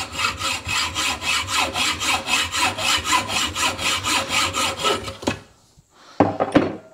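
Hacksaw cutting through the steel threaded shank of an adjustable sway bar link clamped in a vise: rapid, even back-and-forth rasping strokes that stop suddenly as the cut goes through after about five seconds, followed by a short clatter near the end.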